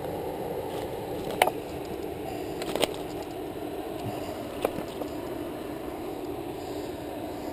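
A few sharp clicks and knocks as a fish lip grip and a landing net are handled, the two loudest about a second and a half apart near the start. Under them runs a steady rushing background noise.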